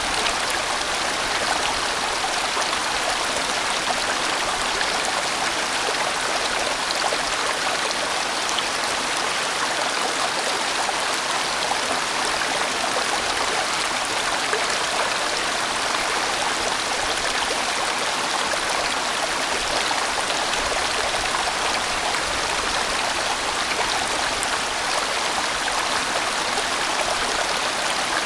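A large, winding valley stream flowing, a steady, even rush of water with no break or change.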